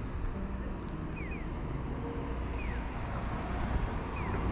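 Outdoor street ambience: a steady low rumble of distant traffic, with a bird's short falling chirp repeated about every second and a half.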